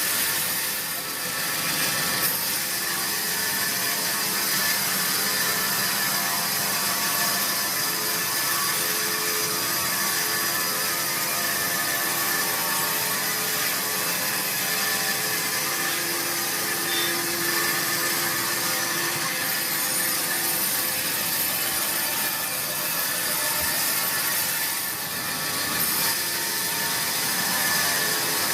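Sawmill saw running steadily as it cuts a large teak log, a continuous machine noise with a strong high-pitched hiss and several held tones, easing off briefly about a second in and again near the end.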